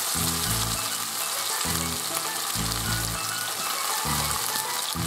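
Chunks of sculpin sizzling steadily in a hot frying pan as they start to fry.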